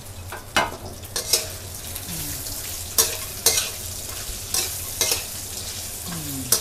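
Metal spatula scraping and clanking against a metal wok as pieces of crispy pork belly are tossed in a little hot oil, with about seven irregular strokes over a steady low sizzle.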